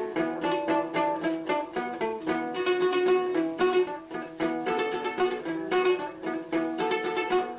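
Background instrumental music: a plucked string instrument playing a quick, repeating melody.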